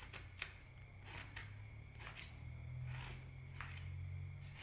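Faint scraping of a small knife against the inside of a halved bitter gourd, taking out the white pith, in a handful of short separate strokes, over a steady low hum.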